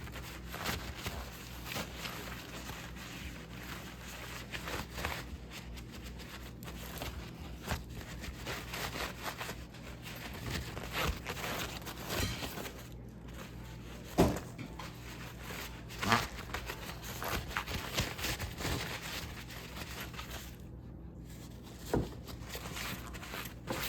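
Handling noise as a plastic laptop case is wiped and worked on by hand: scattered rubbing, rustling and small clicks, with three sharper knocks in the second half.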